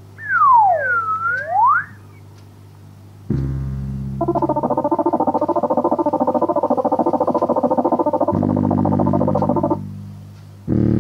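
Electronic organ or synthesizer sound effects for a cartoon. A swooping tone falls and rises again at the start. A held chord enters a few seconds in, with a rapidly pulsing, warbling tone over it for several seconds. A fresh chord comes in near the end.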